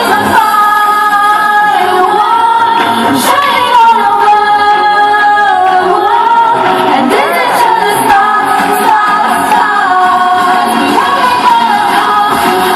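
Music with singing: a vocal melody of long held notes that waver in pitch, over a steady accompaniment.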